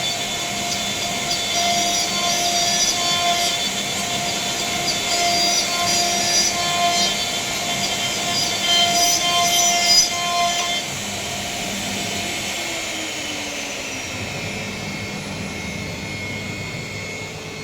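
CNC router spindle whining steadily while cutting a wooden panel, with an irregular rasp of the bit in the wood. About eleven seconds in the cutting stops, the sound gets quieter and the whine slowly falls in pitch as the spindle winds down.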